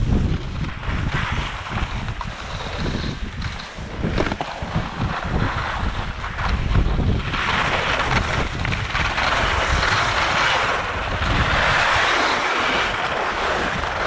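Strong wind buffeting the microphone in an irregular low rumble, joined by a steady hiss from about halfway through.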